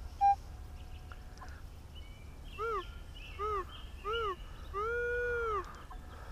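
Minelab CTX metal detector sounding on a target: a short beep, then four tones that each rise and fall in pitch as the coil sweeps over it, the last one longer.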